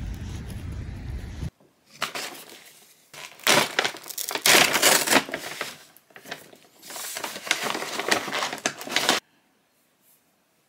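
Wind rumbling on the microphone for about a second and a half. Then a brown paper bag crinkles and rustles in a string of loud bursts as a hand rummages in it and lifts out the food, stopping about a second before the end.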